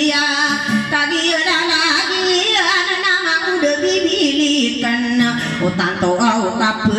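A woman singing a song while playing an acoustic guitar.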